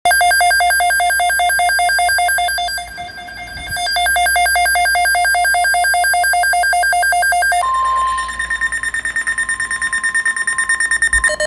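Electronic alert tones of a weather-radio emergency alert broadcast. A fast-pulsing alarm tone runs for the first seven and a half seconds, dipping briefly around three seconds in. It then gives way to a different pulsing tone over a faint steady tone, which grows louder toward the end.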